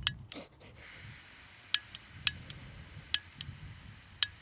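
Faint steady hiss of gas from a Jetboil-type canister camping stove once its valve is opened, with a handful of sharp, irregular clicks over it.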